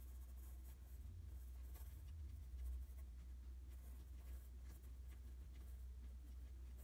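Graphite pencil scratching faintly across drawing paper in short, repeated shading strokes, over a steady low hum.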